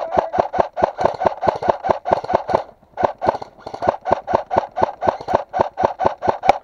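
Airsoft electric rifle firing a long string of shots in quick succession, about six a second, each a short sharp crack, with one brief pause nearly three seconds in.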